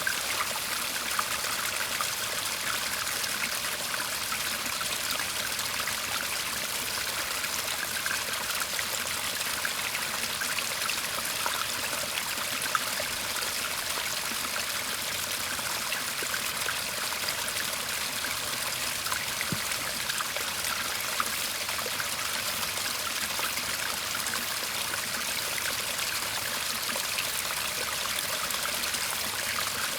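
Shallow garden stream babbling and trickling steadily over stones, with many small splashes.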